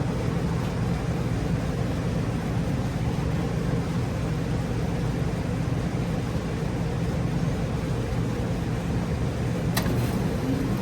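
2017 Heil 5-ton central air conditioner condensing unit running steadily, its Copeland scroll compressor humming under the rush of the condenser fan, with a single sharp click near the end.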